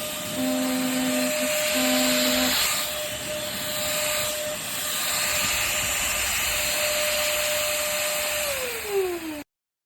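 Cordless stick vacuum's motor running with a steady high whine over a strong airflow hiss, with two brief lower hums in the first few seconds; near the end the whine falls in pitch as the motor winds down.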